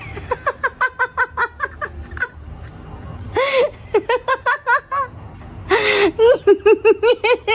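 A person laughing hard in quick repeated "ha-ha" pulses, in three bouts, each starting with a louder burst.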